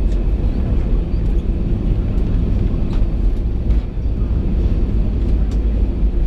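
Steady low rumble of engine and airflow noise inside an Airbus A320 passenger cabin, with a few faint light clicks or rattles.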